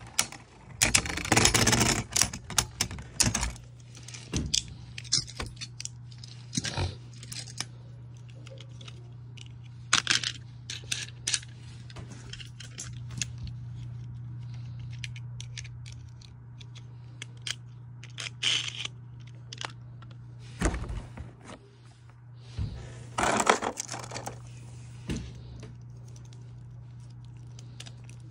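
Plastic Beyblade Burst spinning tops clashing, clicking and scraping against each other in a plastic stadium, a dense run of hits in the first few seconds. After that come scattered clicks and short rattles over a steady low hum.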